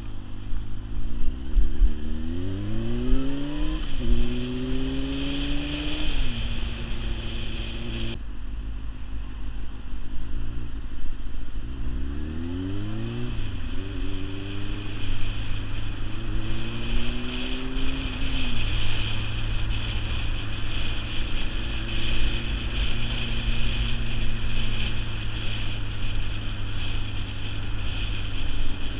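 Sport motorcycle engine accelerating up through the gears, its pitch climbing with each gear and dropping at each shift, near the start and again about halfway, then holding a steady cruise. Wind rushes over the microphone throughout.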